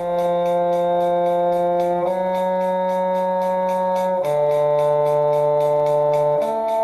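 A slow shifting exercise played as held notes, each sustained about two seconds before moving to the next pitch, changing three times, over a faint steady tick about four times a second.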